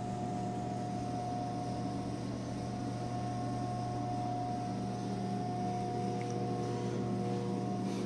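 Steady mechanical hum of a ceiling ventilation fan, an even drone with a few fixed tones and no change in level.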